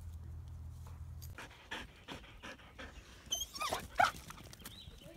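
A dog panting quickly, with two short high-pitched whines a little past the middle.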